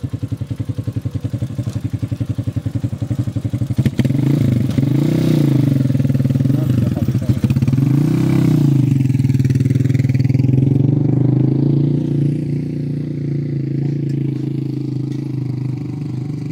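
A small engine puttering at idle, then revved about four seconds in. Its pitch rises and falls a few times, then it runs steadily and slowly fades away.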